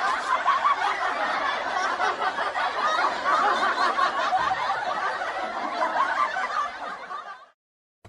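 A crowd laughing together, like a sitcom laugh-track sound effect, dying away near the end.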